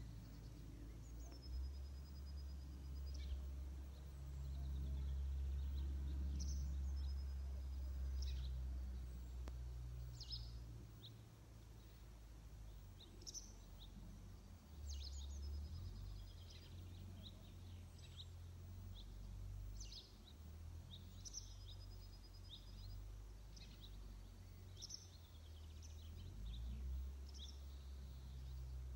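Small birds singing: short high chirps and a repeated high trill phrase every few seconds, over a low rumble that swells and fades.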